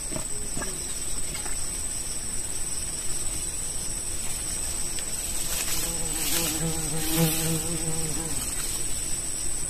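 Insects giving a steady high-pitched drone. Past the middle, a low, slightly wavering pitched hum joins in for about two and a half seconds.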